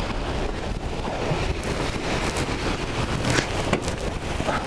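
Wind buffeting the microphone over the rush of water along the hull of a sailboat under way, with a few short clicks and knocks from the rigging and deck gear.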